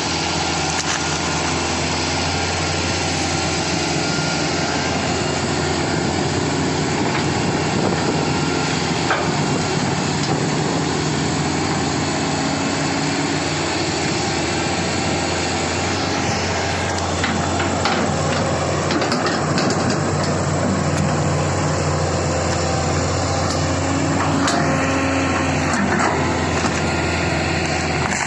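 Excavator's diesel engine running steadily, with a few short knocks partway through.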